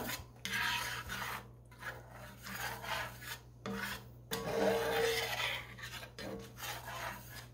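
Utensil scraping and stirring gravy in a skillet as the flour roux thickens: a rasping stroke repeated four or five times with short pauses between.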